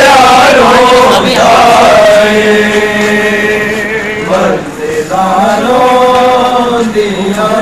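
Men's voices chanting a noha, a Shia mourning lament, loudly, in long held, wavering notes.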